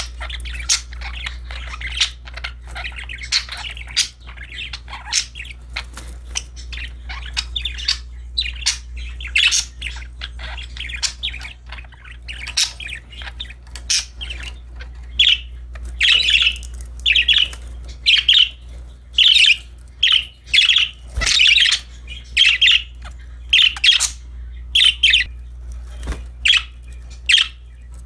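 Pet budgerigars chirping and chattering in quick, dense calls. From about halfway, loud sharp squawky calls come about once a second. A steady low hum runs underneath.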